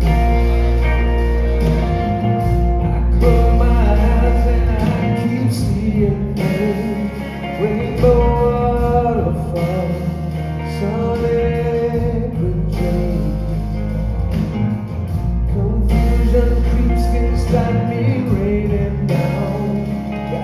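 A live band plays a slow ballad, with a male singer singing over guitar and band.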